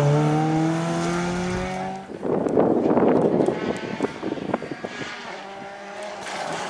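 Renault Twingo rally car's engine pulling away under acceleration, its pitch rising steadily, breaking off about two seconds in. Then a rustling noise with scattered clicks, and near the end the faint engine of a distant approaching Ford Fiesta rally car.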